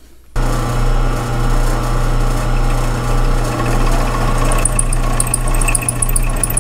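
Drill press running with a drill bit cutting into a casting in an interrupted cut, a steady motor hum under the grinding of the cut. From a little past halfway a high squeak repeats several times a second, which the machinist puts down to the bit meeting a hard spot in the casting.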